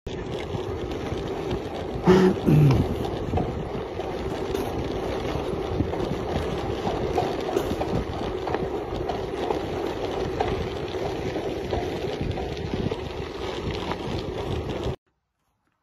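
Bicycle rolling along a gravel road: a steady rumble of tyres on loose gravel mixed with wind on the microphone. A short falling tone comes about two seconds in, and the sound cuts off suddenly near the end.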